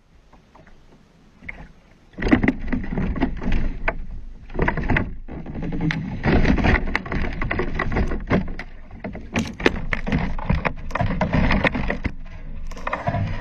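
Wind and choppy sea on a small sea kayak, loud from about two seconds in, with water splashing and many sharp knocks against the hull and the camera mount.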